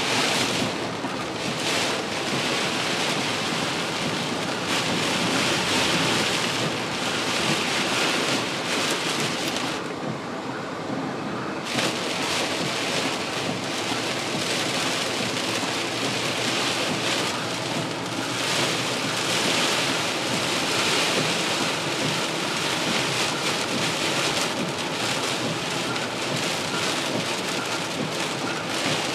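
Heavy rain pelting a car's roof and windshield, heard from inside the cabin as a dense, steady patter. The high hiss briefly thins out about a third of the way in.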